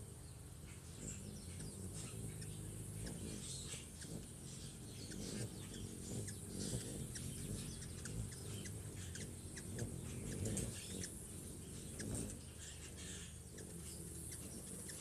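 Hummingbirds giving many short, high chip calls at irregular intervals, over a steady low hum.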